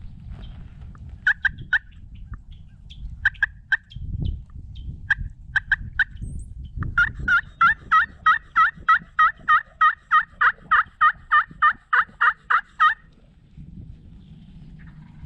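Turkey yelps: a few short groups of two or three, then a long, even run of about twenty yelps at roughly three a second that stops near the end. Low rustling and wind noise lie beneath.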